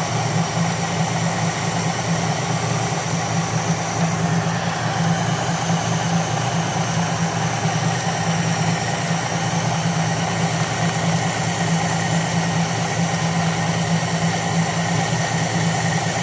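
1989 Jeep Wrangler's carbureted 4.2-litre inline-six idling steadily, heard close over the open two-barrel carburetor with the air cleaner off.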